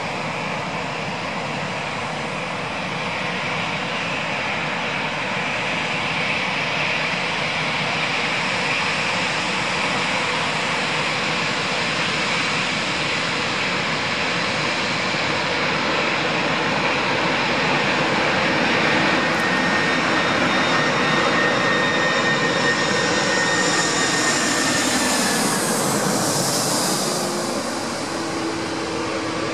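Airbus A340-300 airliner's four CFM56 jet engines on approach, a steady roar with a whine that grows louder. Near the end the aircraft passes by, its whine gliding down in pitch as the sound sweeps past.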